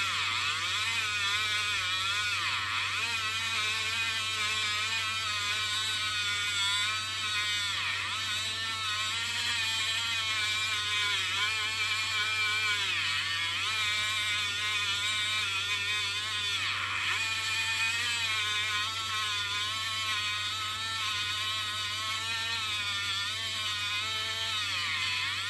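Handheld rotary tool (Dremel) with a sanding drum grinding the corners of a small steel axe head. It gives a high whine whose pitch dips and recovers several times as the drum is pressed into the steel.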